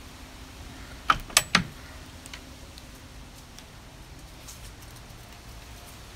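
A black metal slide latch on a wooden shed door clacking three times in quick succession as it is undone and the door opened, over a steady low wind noise.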